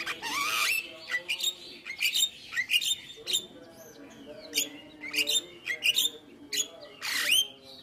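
Javan myna (jalak kebo) singing a rapid, varied song of sharp clicks, rising whistles and harsh chattering notes, with a longer rising whistle near the end.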